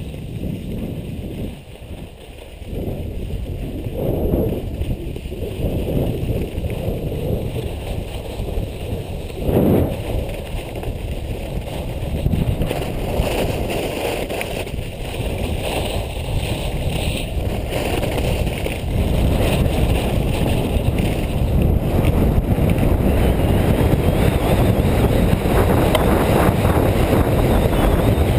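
Wind rushing over a face-mounted GoPro's microphone and skis sliding on packed snow during a downhill ski run, a steady rumbling noise that grows louder over the last third.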